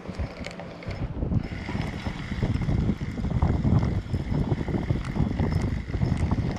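Wind buffeting the microphone in uneven gusts, with a faint steady high whine joining about a second and a half in.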